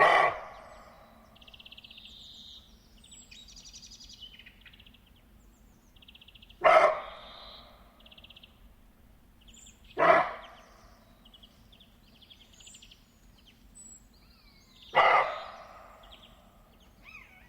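A deer gives four single, sharp barks a few seconds apart, each dying away quickly; this is the deer's bark, typically an alarm call. Faint bird chirps and trills carry on between the barks.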